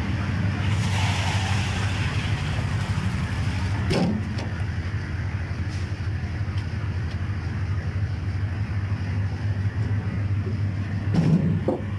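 An engine running steadily with a low, even hum, with a short knock about four seconds in and another near the end.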